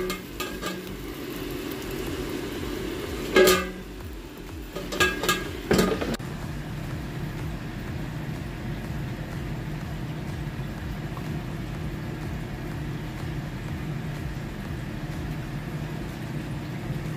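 A few sharp knocks and clicks between about three and six seconds in, then an air fryer's fan running with a steady hum.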